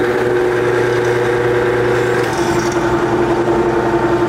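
Lathe running with a steady motor whine made of a couple of constant tones. About two seconds in the pitch pattern shifts: one tone drops out and a higher one comes in.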